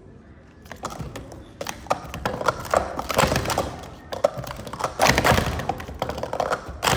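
Plastic sport-stacking cups clattering as they are stacked up and down at speed: a dense, rapid run of light clicks and knocks starting about a second in, with a sharp louder knock near the end.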